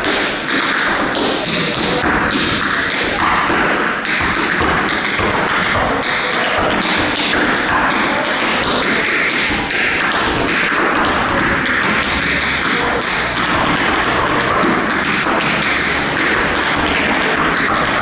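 Tap shoes striking a wooden floor in quick, dense, unbroken runs of taps: solo tap dancing.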